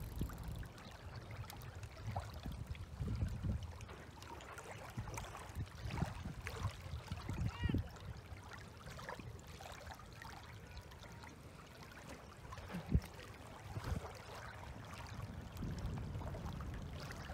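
Small waves lapping at a stony lake shore under a steady low rumble of wind, with a few faint clicks, one sharper near the end.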